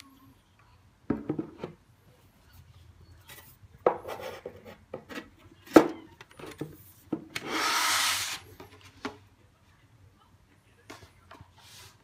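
Handling noises: a series of knocks and clicks, with one short rubbing scrape about eight seconds in.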